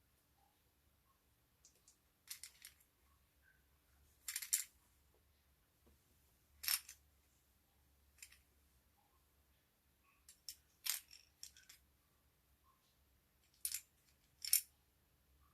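Scattered short, sharp clicks and crackles at irregular intervals, from slime and makeup being handled during mixing.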